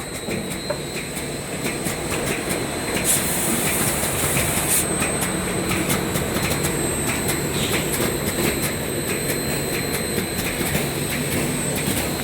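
Wide belt sander running with only its first sanding head, a 180-grit belt, as a melamine-faced panel feeds through on the conveyor. It makes a steady mechanical rumble with a grinding hiss, growing louder over the first two seconds. A brief burst of high hiss comes about three seconds in.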